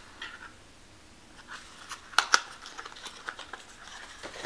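A small cardboard perfume box being opened by hand: faint rustling and scraping of card, with two sharp clicks a little past two seconds in.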